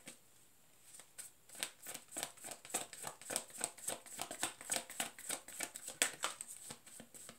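A deck of tarot cards being shuffled by hand, starting about a second in: a quick, irregular run of soft snaps and flicks of card on card, several a second.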